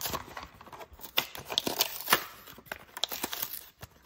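Cardboard and plastic diecast car packaging being handled and opened by hand: an irregular run of short crinkles, clicks and taps.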